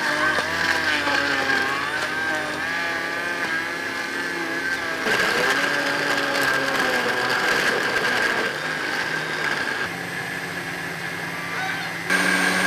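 Panasonic countertop blender motor running under load as it blends beetroot chunks and ice into juice. It makes a steady whine that wavers as the load changes and shifts pitch a few times.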